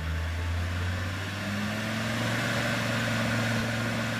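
Land Rover Discovery 2 Td5 diesel engine revved from idle: its pitch rises about a second and a half in and holds at higher revs. The engine is running with its EGR valve partially stuck open, which makes it blow black smoke under revs.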